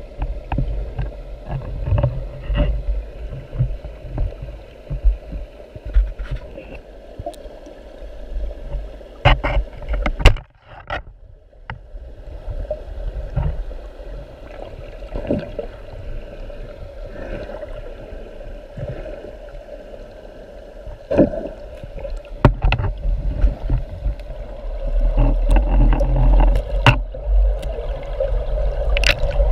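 Muffled water noise, as heard through an underwater camera housing during spearfishing: a steady low rumble with many scattered clicks and knocks, growing louder near the end.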